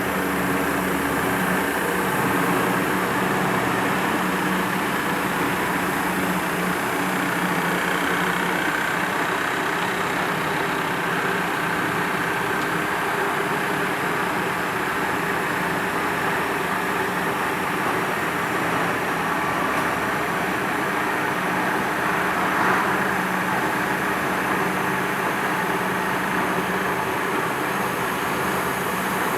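Baler twine making machine running steadily: a continuous mechanical drone and whir with a low steady hum. One brief click about three-quarters of the way through.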